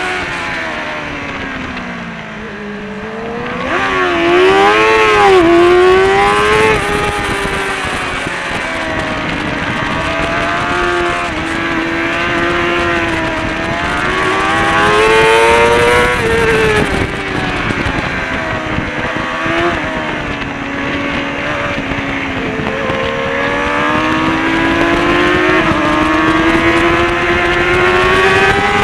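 Kawasaki ZXR400 race bike's inline-four engine with a Pipewerx exhaust, heard from on board at racing speed. The revs fall as the bike slows into a corner, rise and drop quickly several times about four to six seconds in, then climb steadily as it drives out, dipping twice more before a long pull near the end.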